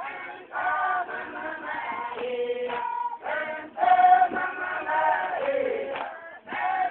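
A group of voices singing a chant together, in short phrases with brief gaps between them.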